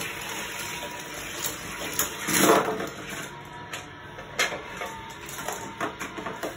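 Die-cast toy cars rattling and clattering on a plastic Hot Wheels garage track set, with a louder rattling rush about two and a half seconds in and a series of sharp plastic clicks and knocks near the end.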